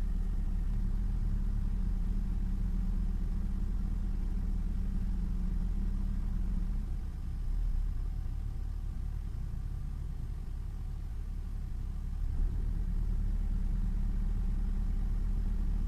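Daihatsu Copen L880K's small four-cylinder turbo engine idling steadily. Its note thins and dips slightly about seven seconds in and comes back about five seconds later.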